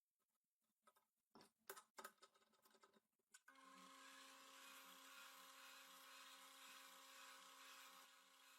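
A few faint clicks and knocks, then about three and a half seconds in a small electric motor starts and runs steadily with a faint, even hum and a slight regular pulse.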